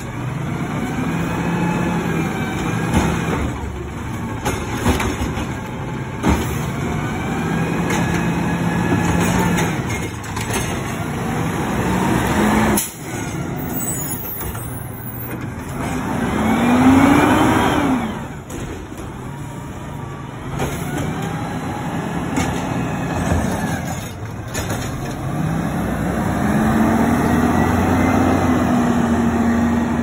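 Side-loading garbage truck's diesel engine revving up and down in repeated cycles, with a whining tone that climbs, holds and drops each time, as the truck's hydraulics work the lift and packer. A short air-brake hiss comes about halfway through, and near the end the engine pitch rises and holds as the truck pulls away.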